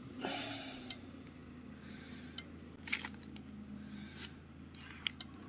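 Crinkling and rustling of foil-paper wrapping and a plastic ham package as sliced ham is peeled off and laid on bread, with a sharp crackle about three seconds in. A steady low hum runs underneath.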